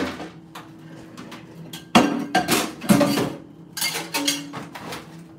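Metal clanks and knocks from a microwave oven's parts being pulled apart and handled. A sharp bang comes about two seconds in, followed by a short run of clattering and another knock a little later.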